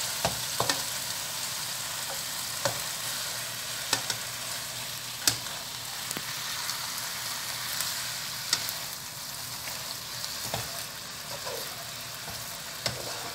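Leafy greens, mushrooms and garlic sizzling in a non-stick wok as they are stir-fried, with a steady hiss. A spatula scrapes and knocks against the pan every second or two.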